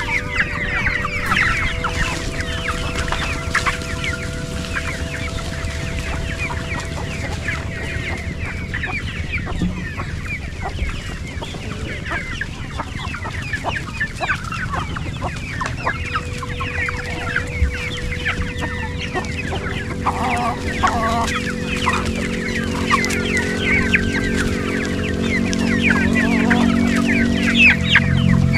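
A flock of chickens, hens and roosters, clucking and chirping continuously as they feed.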